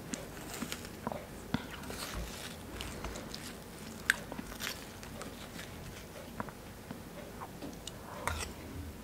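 Ripe watermelon being scooped with a metal spoon and munched: irregular soft wet scrapes, small clicks and chewing, with one sharper click about four seconds in.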